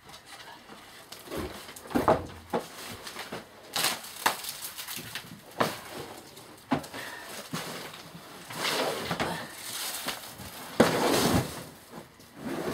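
Sharp knocks and thumps of a wooden board being shifted on a table, followed by longer rustling and scraping as a large flexible mat is lifted and bent over, the loudest scrape a little before the end.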